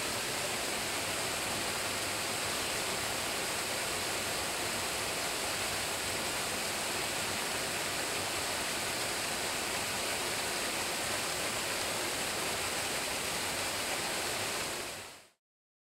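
Waterfall cascading down granite slabs, a steady rushing of water that fades out quickly near the end.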